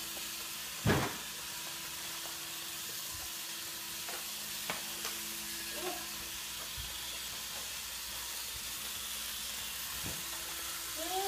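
Fisher-Price GeoTrax plastic toy train pieces handled on a wooden floor: one loud knock about a second in, then a few light clicks, over a steady hiss and a faint steady hum.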